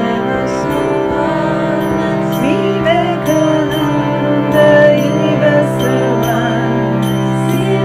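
Kirtan: a group singing a Hindu devotional bhajan over a steady drone, with light high-pitched strikes keeping a regular beat.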